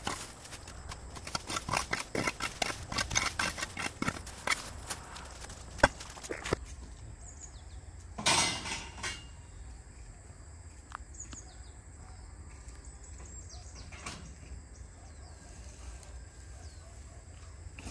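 Rapid, irregular clicks and knocks for about six seconds, a short rush of noise a couple of seconds later, then quieter outdoor sound with a few faint bird chirps.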